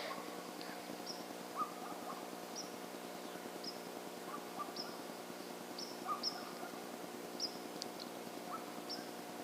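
Outdoor birds calling: short high chirps repeated about once a second, with a few lower notes, over a steady low hum.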